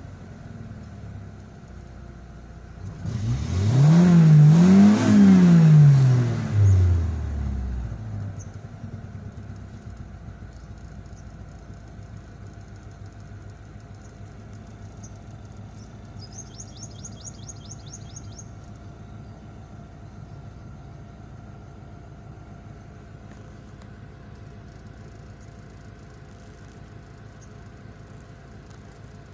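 Honda car engine revved up twice in quick succession, then dropping back to a steady, low idle. Brief high chirps, like a small bird's, come in briefly about halfway through.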